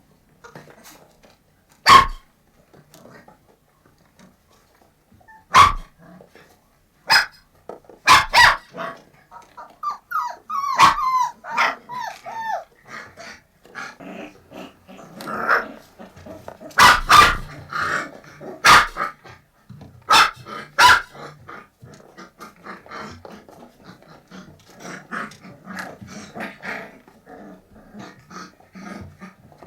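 Puppies barking in sharp single yaps spaced a few seconds apart, with a run of high, wavering whimpers about ten seconds in and softer, busier yips and whines toward the end.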